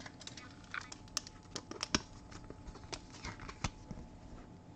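Scattered light clicks and soft rustles of trading cards and their packaging being handled on a table, a dozen or so short taps spread across the few seconds.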